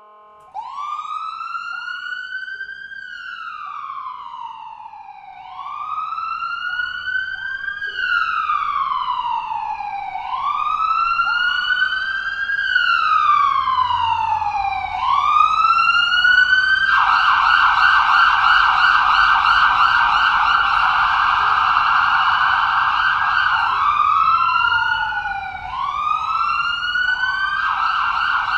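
Ambulance siren sounding a slow rising and falling wail, getting louder, then switching to a rapid yelp about two-thirds of the way in. It returns briefly to the wail and goes back to the yelp near the end.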